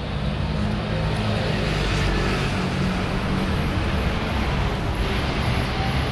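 City street traffic: a steady wash of engine and tyre noise from passing vehicles, with a motor vehicle's engine hum running close by for the first few seconds.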